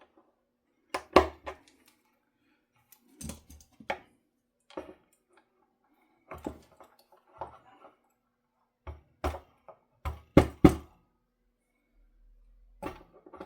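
Irregular knocks and clicks of parts and tools handled against a solid-body electric guitar during assembly, a dozen or so separate hits with pauses between, the loudest bunched together near the end.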